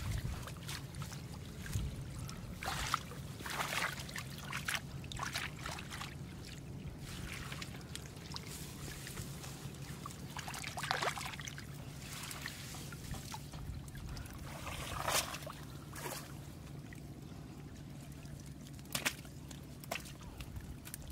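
Shallow floodwater trickling and sloshing, with scattered splashes as hands and a mesh hand net move through it to catch fish. A faint steady low hum sits underneath.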